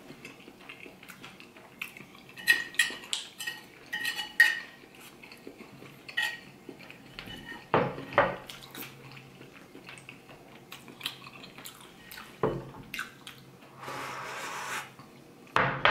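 Metal spoon clinking and scraping against a ceramic plate as soup is spooned up, with several ringing clinks in the first few seconds. Near the end the soup is slurped straight from the tipped-up plate.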